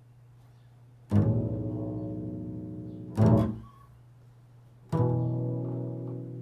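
Improvised music on a low plucked string instrument: a note struck hard and left to ring and fade for about two seconds, a short, quickly dying note after it, then another long ringing note.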